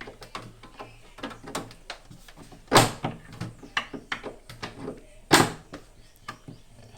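Knocks and clicks of the plastic rear panel inside a frost-free freezer being pried and pulled at, with two loud bangs about three and five and a half seconds in. The panel will not come free, which is taken to be built-up ice holding it.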